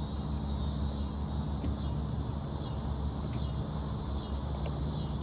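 Crickets chirping in a steady high chorus over a constant low rumble.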